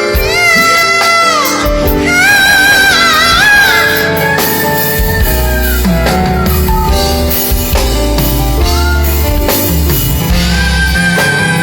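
A singer holding long notes with vibrato over music with bass and drums.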